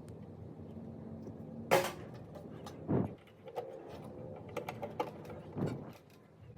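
Microwave oven running with a low electrical hum, broken by a sharp click about two seconds in and dull knocks near three seconds and five and a half seconds in; the hum drops away near the end.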